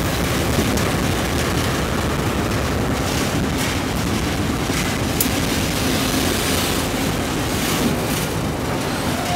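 Loaded bauxite freight train rolling past: a steady rumble of steel wheels on rail from the loaded ore wagons, with a few sharp clicks.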